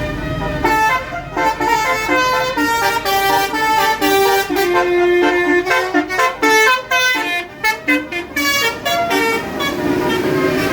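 Basuri musical horn on a tour bus playing a quick melody of stepped notes in short phrases, starting about a second in, over a low rumble at the start.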